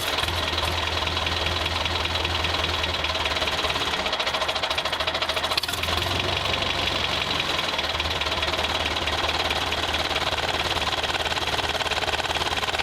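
A vehicle engine running steadily with a fast, even chugging pulse.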